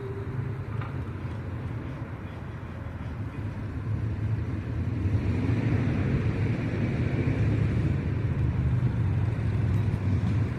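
Harz narrow-gauge steam train pulling into the station: a steady low rumble that grows louder about four seconds in, with a higher rushing noise joining shortly after.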